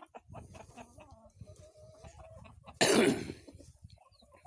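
Chickens clucking faintly, with one short, loud burst of noise about three seconds in.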